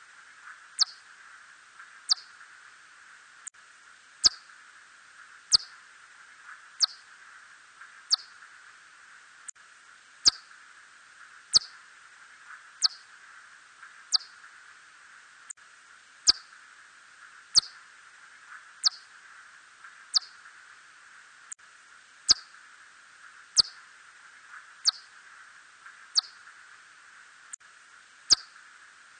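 Red bat (Myotis rufoniger) calls: short chirps that each fall quickly in pitch, repeating about once every 1.3 seconds over a steady hiss.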